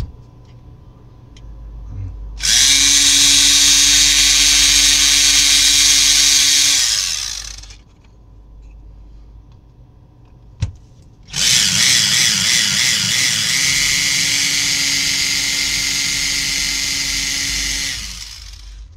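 Handheld electric drill with a small twist bit running at a steady speed, boring holes through a copper-clad circuit board, in two runs of about five and seven seconds. A single sharp click falls between the two runs.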